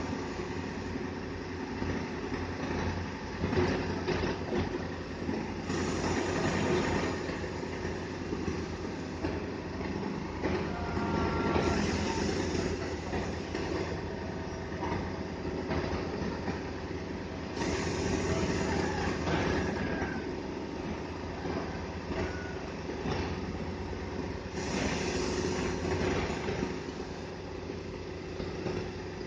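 Heavy diesel engine of a truck crane running steadily under load. A hiss rises and falls about every six seconds.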